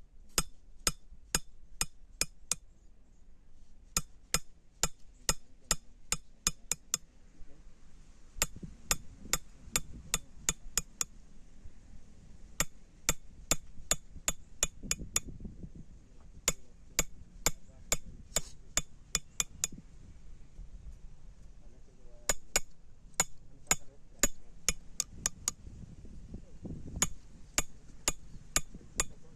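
Blacksmith's hammer striking iron in runs of rapid ringing blows, about three a second, with short pauses between the runs.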